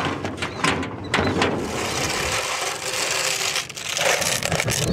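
Metal shovel scraping across a concrete path and scooping up piles of grass clippings, with several short clatters and knocks.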